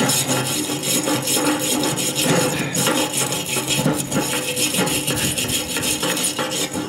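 Hand wire brush with a wooden handle scrubbing surface rust off the steel plate around a lawn roller's axle shaft, a continuous back-and-forth scratching of steel bristles on metal.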